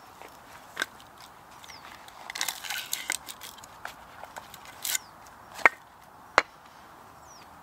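Split firewood being handled at a chopping block: pieces clatter and scrape as they are gathered up, then two sharp wooden knocks near the end, the first the louder.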